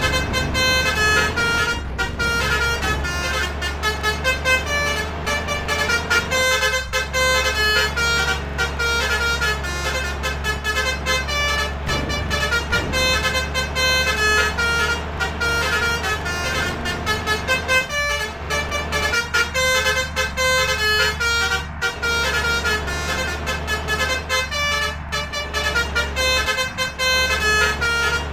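Basuri telolet air horns on trucks playing quick melodic runs of short, stepping notes, over a steady low engine rumble.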